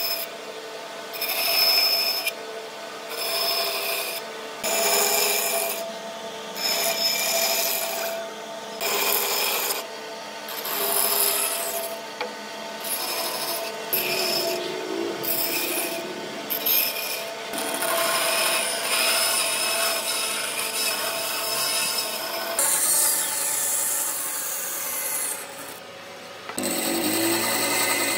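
Bandsaw cutting a series of cross-cuts into a wooden block. Its motor hum runs steadily while the rasping cut noise starts and stops with each pass of the wood through the blade.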